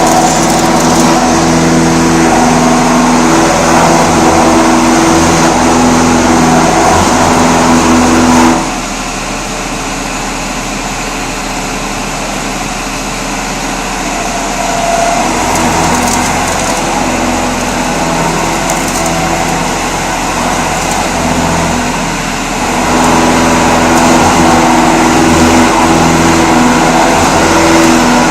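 Vertical machining center cutting a pocket: the spindle and end mill running steadily with a droning hum of several held tones. It is loud for the first eight seconds or so, drops noticeably quieter, then comes back up to full level about six seconds before the end.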